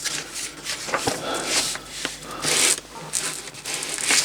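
Paper rustling and crinkling as the pages of a model kit's instruction sheet are handled and turned, with a few irregular swishes and light clicks.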